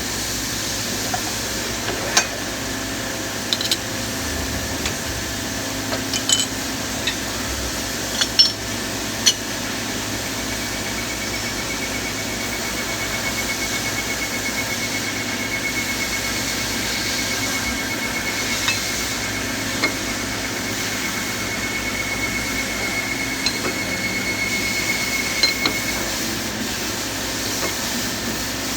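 Scattered metallic clinks and knocks of pneumatic diaphragm-valve actuator parts and tools being handled during assembly, over a steady hiss. A thin, steady high whine runs from about a third of the way in until near the end.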